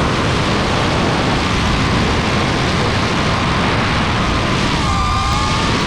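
DJI FPV drone's motors and propellers whining over a steady rush of wind noise, heard from a camera mounted on the drone; the motor pitch dips and then climbs again near the end as the throttle changes.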